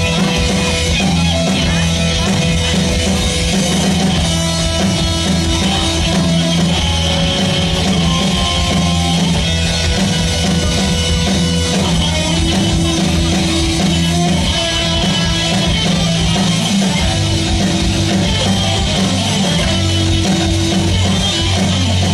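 Rock music: a band playing guitars over a drum kit, loud and even, with held low notes that shift a couple of times.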